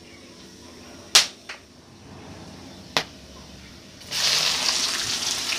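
A few sharp clicks over whole spices tempering in hot oil in a kadhai. About four seconds in, chopped onion goes into the hot oil and a loud, steady sizzle starts suddenly.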